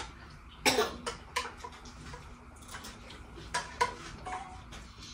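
Spoons clicking and scraping against bowls as people eat, in a string of light separate clinks. A short cough a little under a second in is the loudest sound.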